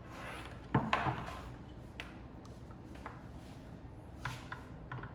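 Knocks and light scrapes of the Facelook X1 and its short stand being handled during assembly. The loudest knock comes about three-quarters of a second in, with smaller taps around two, three and four seconds.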